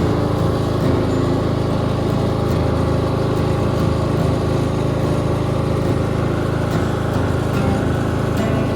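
Riding lawn tractor engine running steadily while the tractor is driven along, an even, unchanging drone.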